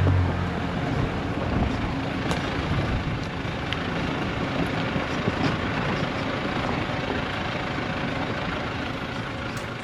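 Four-wheel-drive vehicle driving slowly over a rough, rocky track: a steady rumble of tyres and running gear with scattered small knocks, easing a little in level towards the end.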